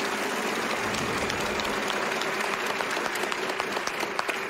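Studio audience applauding steadily while the Wheel of Fortune wheel spins, its rubber pointer clicking against the wheel's pegs; the separate clicks stand out more near the end as the wheel slows.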